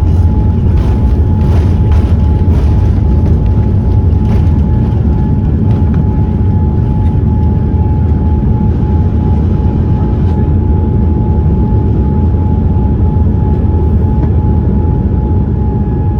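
Boeing 787-10 heard from inside the cabin: a steady, loud deep rumble of engine and air noise with a thin steady whine running through it. A few sharp rattles come in the first few seconds, and the noise eases slightly near the end.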